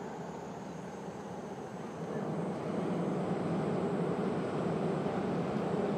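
Train crossing the Seto-Ohashi Bridge's lower rail deck overhead, a steady rumble that grows louder about two and a half seconds in.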